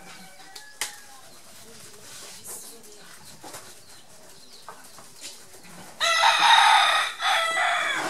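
A rooster crowing once, loud and long, starting suddenly about six seconds in; before it only faint yard sounds.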